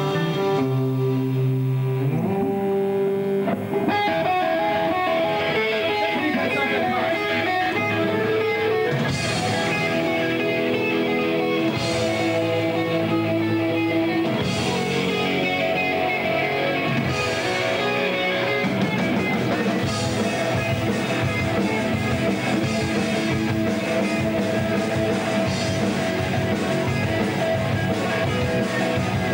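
A rock band playing live: held opening chords, then guitars and drum kit come in about four seconds in, with cymbal crashes every few seconds in the middle stretch.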